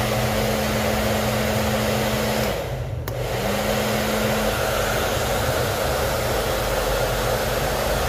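Handheld hair dryer, its original heating element just repaired, switched on and running steadily on test: the fan motor hums under a steady rush of air, with a brief dip about three seconds in. The element is working and the air comes out very hot.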